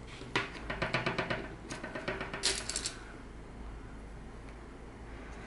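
Handling sounds as fabric is folded and pressed onto a wooden canvas stretcher frame during thumbtack fixing: a quick run of small clicks and ticks for about three seconds, then only quiet rustle.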